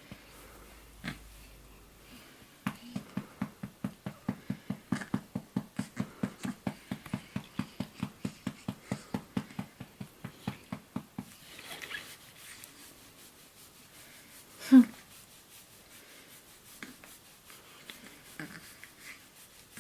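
A fast, even series of soft pulses, about four a second, for some eight seconds, then a single loud burp with a falling pitch about fifteen seconds in.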